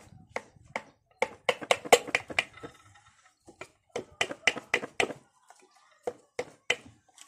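A series of sharp, light taps, mostly in two quick runs of about a second each with a few single taps between and after. They are typical of a piston being tapped down through a ring compressor into the cylinder bore of a Hyundai Grand i10 petrol engine block.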